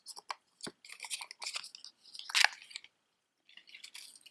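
Costume jewelry earrings being handled: irregular small clicks and crackles, the loudest about two and a half seconds in.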